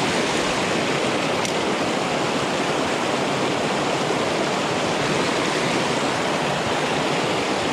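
Shallow mountain stream rushing over rocks in small whitewater cascades: a steady, loud rush of water close by.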